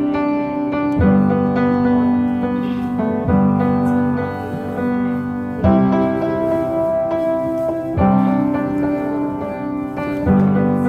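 Background music: sustained piano chords, changing about every two and a half seconds, without singing.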